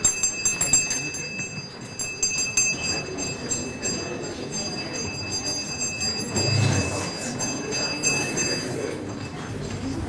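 Room noise of a busy communal dining hall and kitchen: scattered clinks and knocks of dishes and cutlery with indistinct children's voices, over a steady high-pitched whine.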